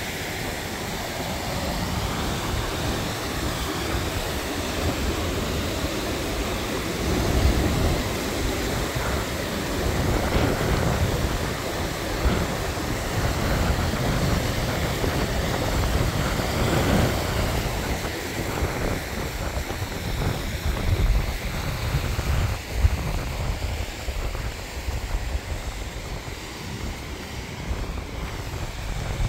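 Mountain stream rushing and cascading over boulders, a steady water noise, with wind gusting on the microphone as uneven low rumbles.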